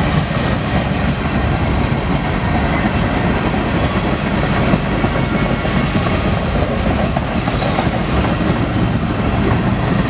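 Freight train cars rolling past: a steady, loud rumble with the clatter of steel wheels on the rail joints.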